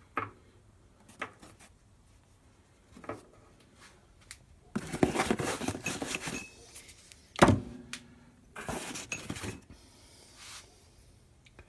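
Handling noises: scattered light knocks and clicks, two stretches of scraping or rustling, and one loud clunk a little past halfway that rings briefly.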